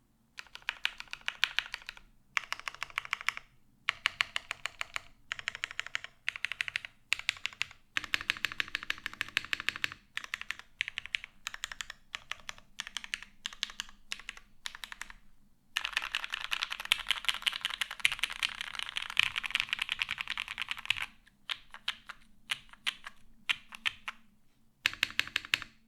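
Typing on a mechanical keyboard with lubed vintage Cherry MX Black linear switches in an aluminum plate, GMK doubleshot ABS keycaps and no case foam. Keystrokes come in bursts with short pauses, with one long, fast run of steady typing past the middle.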